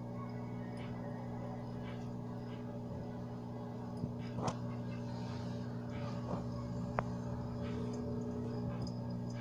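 Steady low hum with a few short, sharp clicks.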